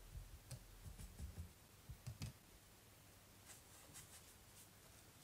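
Faint clicks and light knocks of a paintbrush against a plastic watercolour palette while mixing paint, mostly in the first half, then near silence with a few soft ticks.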